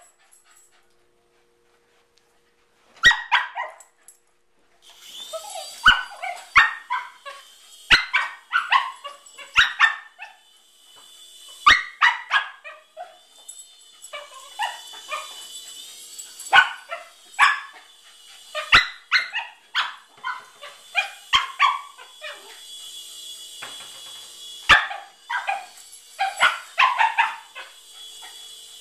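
Cockapoo barking over and over in excited bursts. Under the barks a small toy helicopter's electric rotor motor gives a steady high whine that wavers slightly in pitch.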